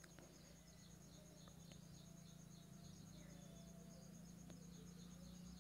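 Near silence: faint, evenly pulsing insect chirping over a steady low hum.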